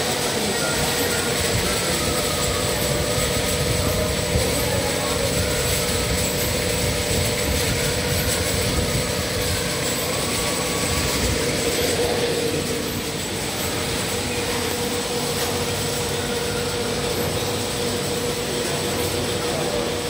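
Rotary ampoule washing machine running: a steady mechanical drone with a constant high tone over it, the carousel turning without a break.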